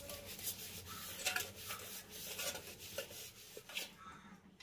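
Green scouring pad scrubbing a small soapy copper pot coated in lemon and salt: quick, irregular rough rubbing strokes, two or three a second, that ease off about four seconds in.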